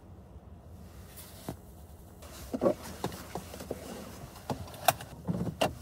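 A car seatbelt being drawn across and fastened, with clothing rustling and a few sharp clicks and knocks, the loudest near the end, over a low steady hum inside the car.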